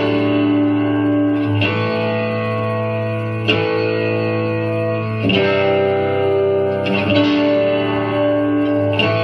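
Instrumental song intro: guitar chords with an effects unit, struck about every two seconds and left to ring out, over a steady low note.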